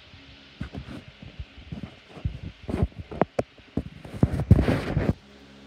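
Handling noise on a hand-held recording device's microphone: irregular knocks and rubbing that grow denser and louder, peaking in a loud scraping cluster before stopping abruptly about five seconds in, over a faint steady hum.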